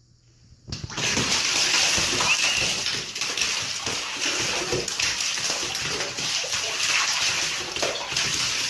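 Water splashing and gushing, starting abruptly about a second in and running on steadily.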